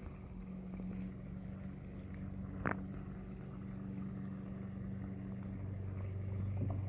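Pool pump humming steadily under the splash of the pool's running waterfall features, with one sharp click about two and a half seconds in.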